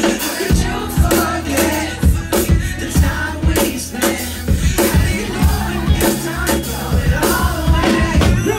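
Live pop-rap band music with a steady drum beat and bass, and a singer's vocals over it.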